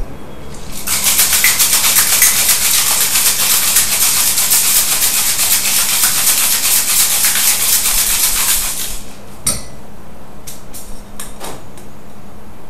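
Cocktail shaker with ice being shaken hard for about eight seconds, the ice rattling in a fast steady rhythm. A sharp knock follows as the shaking stops, then a few light clinks.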